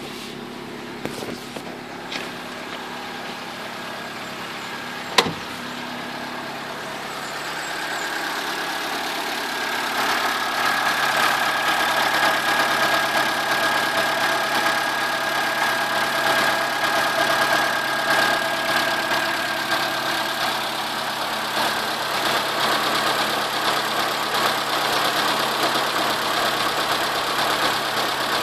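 Chevrolet Corsa 1.0 8V VHC four-cylinder engine idling. About a third of the way in the running grows louder and a steady high tone joins it for around ten seconds, with one sharp click a few seconds earlier.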